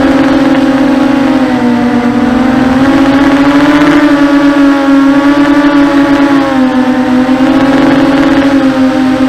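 Electric motors and propellers of a 250-size FPV racing quadcopter whining steadily, the pitch dipping and rising a little as the throttle changes.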